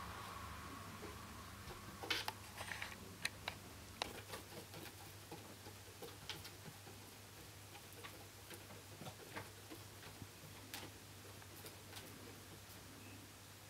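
Irregular light ticks and taps from a snow Bengal cat running on a cat exercise wheel, its footfalls striking the wheel's track, most frequent a couple of seconds in, over a faint steady low hum.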